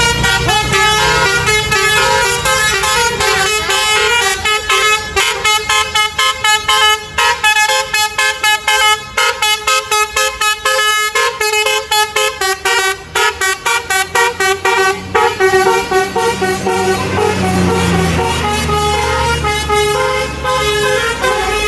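Tour bus's basuri (telolet) horn, a set of multi-tone air horns, playing a melody of short notes that becomes a fast stutter in the middle. Near the end the bus's engine is heard as it pulls away.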